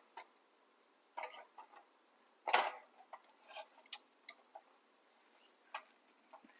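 Metal tongs clicking and scraping against a wire grill rack and the snail shells on it: a scattering of light, irregular clicks, with one louder rasping sound about two and a half seconds in.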